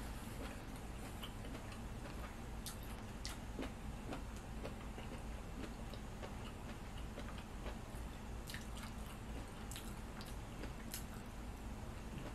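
Scattered light clicks of a metal fork against a clear plastic food container as food is picked out, with faint chewing, over a low steady hum.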